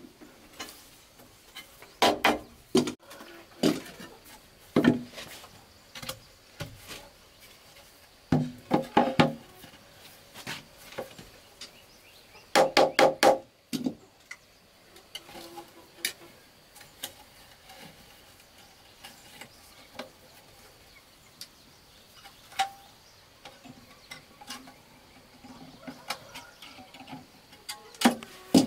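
Hollow bamboo poles being knocked and struck, in short bunches of several quick, ringing blows with pauses between and lighter taps and handling knocks later on.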